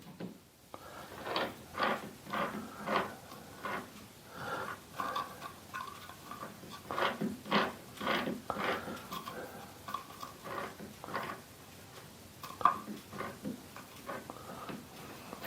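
Irregular light metallic clicks and knocks, a few with a brief ring, from metal parts being handled at a mini lathe's 5-inch 3-jaw chuck.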